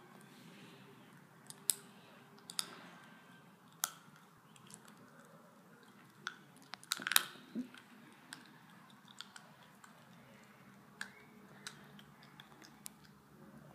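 Dog chewing and gnawing on something held between its paws: scattered sharp crunching clicks over a faint background, busiest about seven seconds in.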